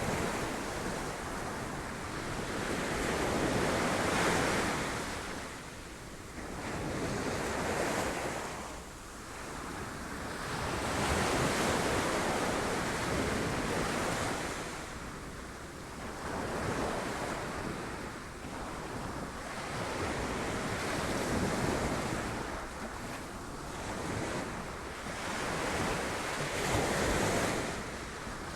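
Sea waves breaking against rocks, each surge swelling and falling back every few seconds.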